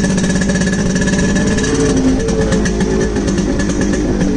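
Yamaha RX100's two-stroke single-cylinder engine running steadily through a loud iron muffler, its pitch shifting slightly.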